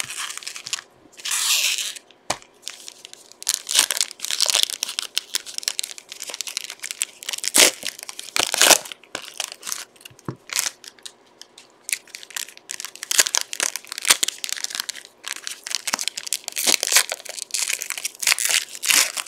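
Basketball trading-card pack wrappers being torn open and crumpled by hand: a long run of irregular crinkling and ripping.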